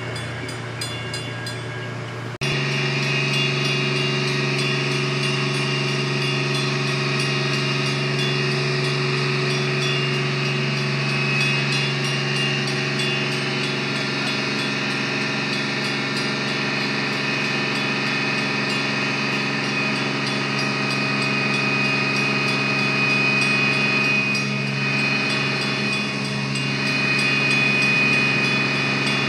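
Diesel locomotive engine running steadily, a held drone of several steady tones. It gets suddenly louder about two seconds in and swells again near the end.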